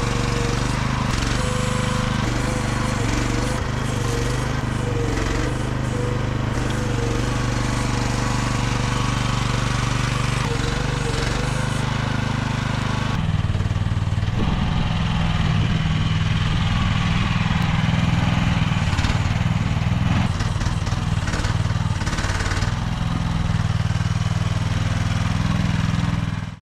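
AGT QH12R mini excavator's engine running steadily while its hydraulics work the boom and thumb, with a wavering whine over the first half. The engine note changes about halfway through, and the sound cuts off abruptly at the end.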